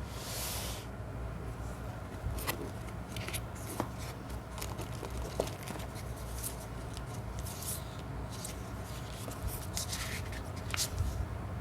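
Packaging being handled and opened: a brief rustle at the start, then scattered light clicks and taps, over a steady low hum.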